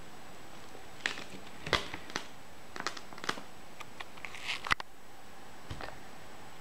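A scatter of small, irregular clicks and crackles over a steady hiss, the sharpest click about three-quarters of the way through.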